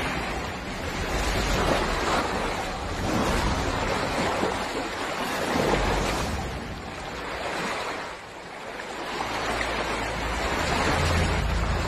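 Water splashing and churning as a crocodile thrashes through shallow water, dragging its prey, in swelling surges of noise.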